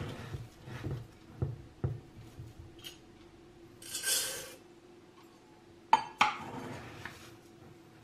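Light kitchen handling sounds: a glass clip-top jar and a steel pot clink a few times, with a short rustle of dry grains being scooped about four seconds in and two sharper clinks about six seconds in.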